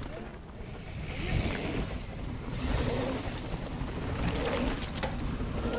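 Mountain bike tyres rolling and skidding on a dirt trail, a steady rushing noise.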